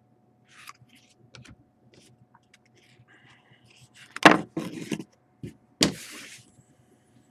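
Trading cards handled and set down on a tabletop: small clicks and slides, then louder knocks and rustling about four seconds in, and a sharp knock with rustling just before six seconds, as a hand and sleeve brush across the table.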